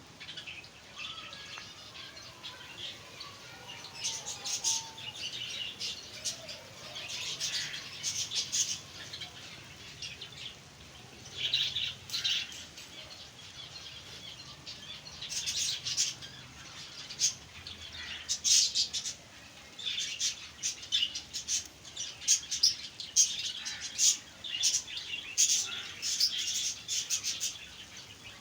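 Flock of small aviary birds chirping and chattering in quick, high-pitched bursts, busier and louder in the second half.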